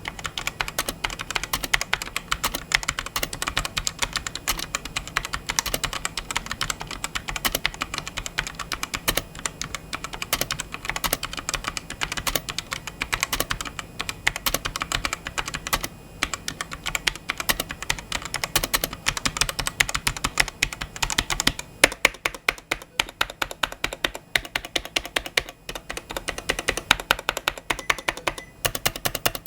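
NYK Ezalor tenkeyless mechanical keyboard with Outemu box switches being typed on fast: a dense, steady stream of key clicks and clacks.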